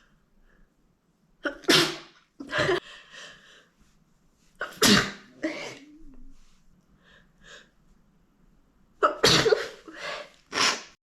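A young woman sneezing again and again: about six loud sneezes in three clusters, with sharp breaths and sniffs between them. The sound cuts off suddenly near the end.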